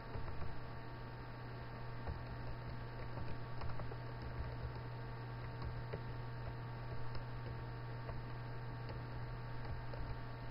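Steady low electrical hum, with faint scattered clicks of keyboard typing.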